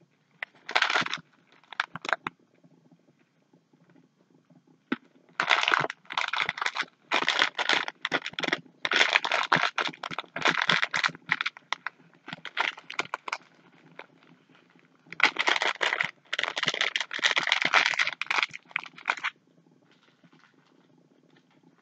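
Plastic candy bags crinkling as they are handled, in irregular rustling bursts: two short ones early, then long stretches of crinkling with brief pauses.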